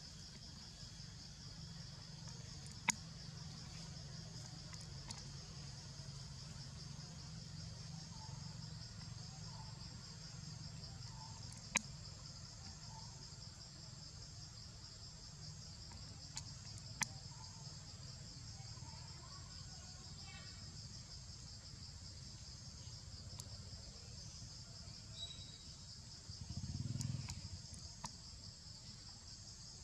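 Steady high-pitched insect chorus, an even, fast-pulsing trill, broken by a few sharp clicks and a brief low rumble near the end.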